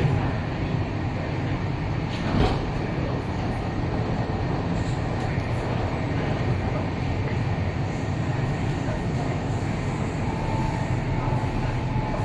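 MTR East Rail Line electric train running, heard from inside the carriage as a steady rumble, with a single knock about two seconds in and a faint whine near the end.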